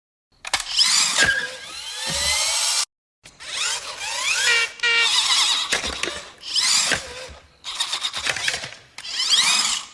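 Sound effects for a toy remote-control car: a whining electric motor that revs up and down in pitch, in several short takes split by brief silences.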